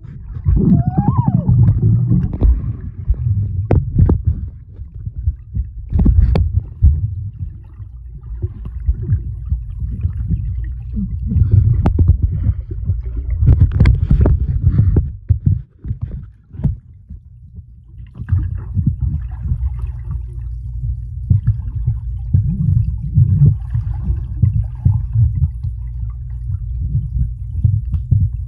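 Muffled underwater sound of swimmers moving through the water: a steady low rumble of churning water with bubbling and scattered sharp knocks and clicks, heard with the microphone under the surface.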